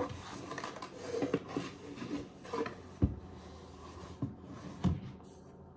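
Flour being scooped out of a plastic tub, a scraping, rubbing rustle against the inside of the tub, with a couple of light knocks about three and five seconds in.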